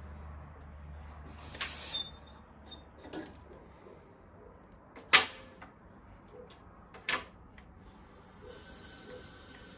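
Work-handling sounds: a low hum that stops about three seconds in, a short hiss before that, then a few sharp clicks and knocks, the loudest about five seconds in and another about two seconds later. A faint steady hiss starts near the end.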